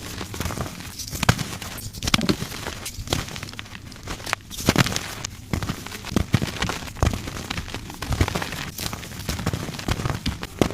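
Soft gym chalk being crushed, crunching and crumbling with a fine crackle. The crunches come again and again, a strong one roughly every second.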